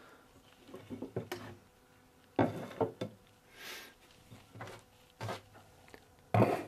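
Wooden chair parts and tools being handled on a workbench: a series of light wooden knocks and taps, a brief rubbing sound about midway, and a louder knock near the end.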